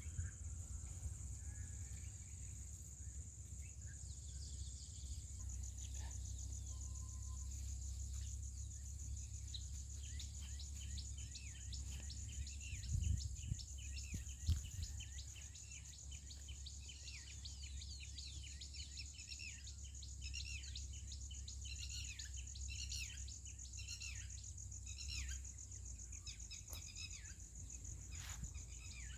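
Outdoor birdsong and insects: a steady high insect trill runs throughout, and from about ten seconds in small birds chirp rapidly in quick, falling notes. A low rumble lies underneath, with two louder thumps in the middle.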